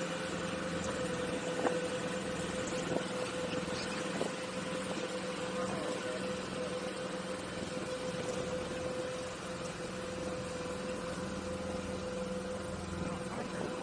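Outboard motor on a set-net skiff idling steadily, an even hum that doesn't change, with a few light knocks in the first few seconds.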